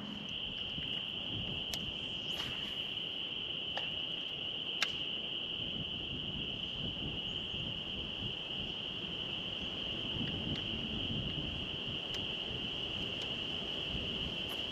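Steady high-pitched insect drone, one unbroken note, over faint wind and water noise, with a few light clicks.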